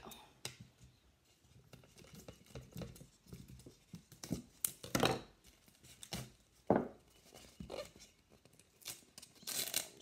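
Duct tape being pulled and torn in short rasping bursts while it is wrapped and pressed onto a cardboard can, with knocks and rustles as the can is handled and rolled on the table.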